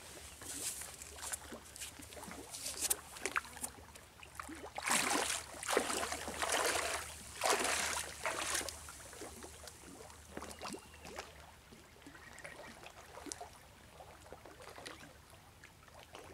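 Footsteps wading and splashing through ankle-deep seawater over a flat rock shelf, with a run of louder splashes about five to nine seconds in, then quieter trickling water.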